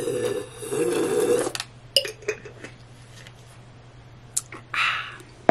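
A person drinking apple juice from a glass bottle: gulps and sloshing liquid for about a second and a half. Then come a few light clicks and clinks of the glass bottle and its cap, ending in a sharp click.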